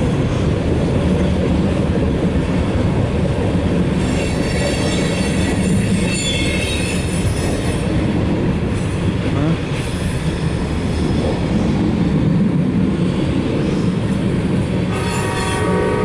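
Loaded coal train's hopper cars rolling past, heard from inside a car: a steady heavy rumble of steel wheels on rail, with high metallic wheel squeal from about four to eight seconds in. A steady pitched tone joins near the end.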